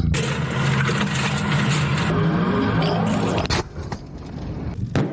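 A military vehicle's engine running loud and steady, cut off abruptly about three and a half seconds in. After that it is quieter, with one sharp crack near the end.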